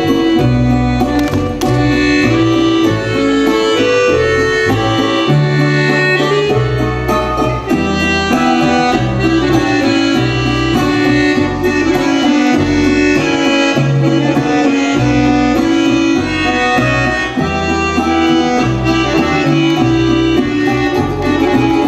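Instrumental music plays throughout, with a bass line moving in short steps under dense sustained melody notes.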